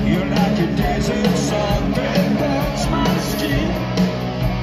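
Rock band playing live through a large PA, heard from the crowd: electric guitars, bass and drums with a man singing into the microphone.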